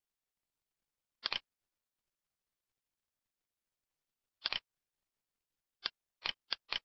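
Computer mouse clicks against dead silence: a quick double click about a second in, another just after four seconds, then four quick clicks near the end.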